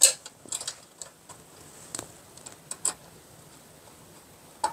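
Scattered light clicks and taps of an insulated wire being handled and pressed into place among the breakers and busbar of a plastic consumer unit, with a sharper click near the end.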